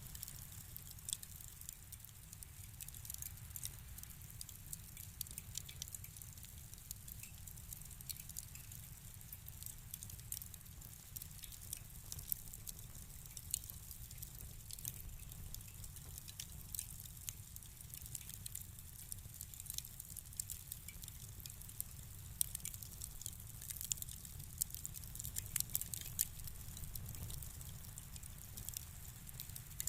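Wood fire crackling in a fireplace: frequent small, irregular pops and snaps over a low steady rumble.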